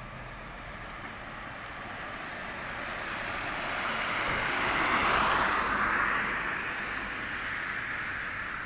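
A vehicle passing by: a rushing noise that grows louder to a peak about five seconds in, then fades away.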